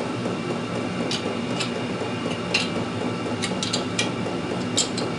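Light metallic clicks of a spanner on hex-head bolts as the motor's mounting bolts are tightened, about eight scattered clicks with the sharpest near the end, over a steady background hum.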